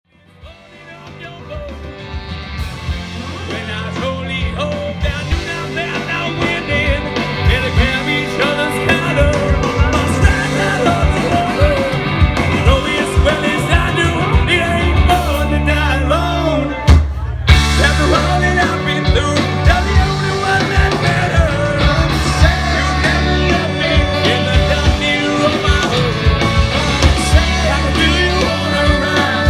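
Live funky indie rock band playing, with drums, bass and guitar driving a steady beat. It fades in over the first few seconds, and the band stops for a brief break about two-thirds of the way through before coming back in.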